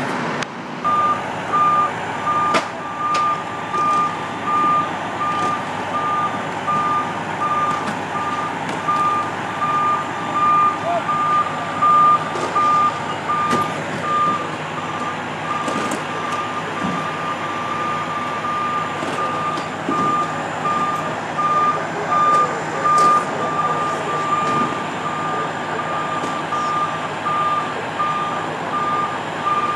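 Fire truck's warning beeper sounding steadily, a single high tone repeated at even intervals, over street noise.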